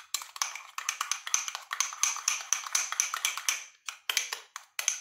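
A metal spoon clinking rapidly against the sides of a small bowl while stirring a thick mayonnaise-based tartar sauce: quick, light, ringing taps, several a second, with a short break a little before the end.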